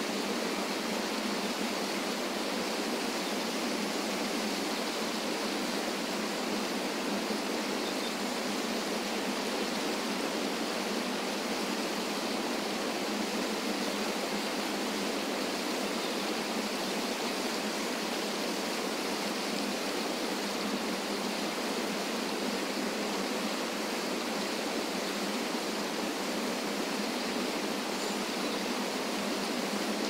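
Small waterfall pouring over rocks into a river pool: a steady, unbroken rush of water with almost no low rumble.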